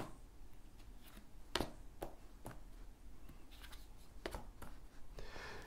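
Tarot cards being drawn from the deck and laid out: a handful of faint, short clicks and taps at irregular intervals.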